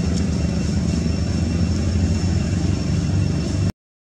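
Steady low engine-like rumble, as of a motor vehicle running, that cuts off abruptly near the end.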